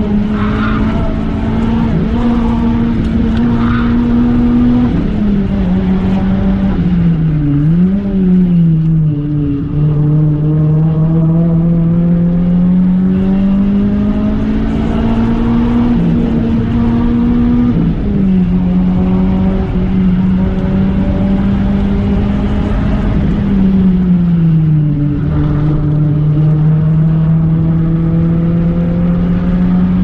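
Renault Clio 3 RS 197's 2.0-litre four-cylinder engine under load, heard from inside the cabin while driving uphill. The engine note climbs slowly and drops back in pitch several times, around five, eight, eighteen and twenty-five seconds in.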